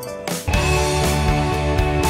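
Instrumental background music. A brief swell about half a second in leads into a fuller, louder section with a steady beat.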